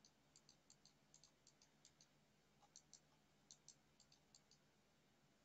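Faint computer mouse clicks, about twenty, scattered irregularly and several in quick pairs, over a faint steady low hum.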